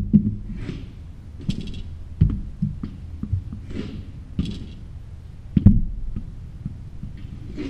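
Hockey stick knocking balls across a hard floor: a string of sharp, irregular knocks and clacks with a few short scrapes. The loudest knock comes about five and a half seconds in.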